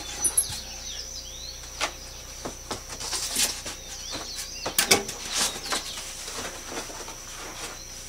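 Cardboard box and packing being handled during unpacking: scattered rustles, scrapes and light knocks, the loudest cluster about five seconds in. Birds chirp faintly in the background.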